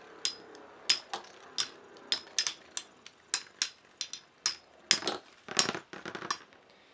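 Two spinning Metal Fight Beyblades clashing again and again: a rapid, irregular series of sharp clacks, about three a second.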